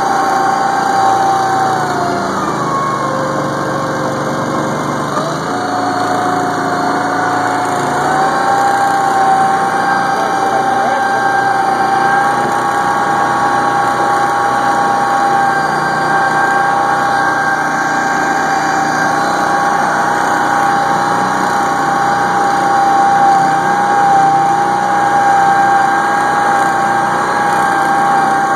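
Argo amphibious ATV's engine running steadily as it drives through water and reeds, with a high steady whine over it. The whine drops in pitch about two seconds in and rises back between about five and eight seconds in, then holds.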